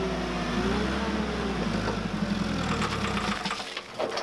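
Komatsu forklift engine running, its pitch dipping and rising again about a second in. Near the end the engine sound drops away and a few sharp metal clanks follow.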